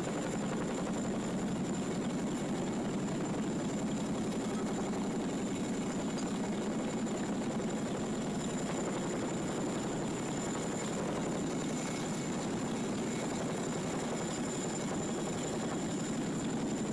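CH-47 Chinook helicopter hovering just overhead: the steady, fast beating of its rotors with a thin, high turbine whine over it.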